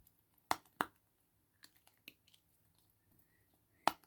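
Simple Dimple fidget toy being pressed, its silicone bubbles popping with sharp clicks: two close together about half a second in, a few faint ones after, and a loud one near the end.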